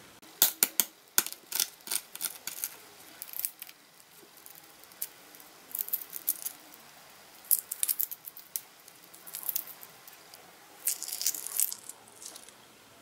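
Shell of a boiled quail egg cracking and being picked off by fingers: clusters of small, sharp crackles and clicks every second or two, with quiet gaps between.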